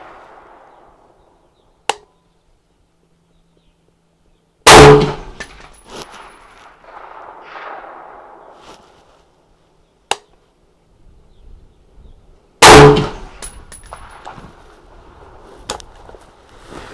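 Two .308 rifle shots from a Daniel Defense DD5V2 semi-automatic firing Fiocchi Exacta 168-grain match ammunition, about eight seconds apart, each very loud and trailing off in a ringing echo. Short sharp clicks come a few seconds before each shot.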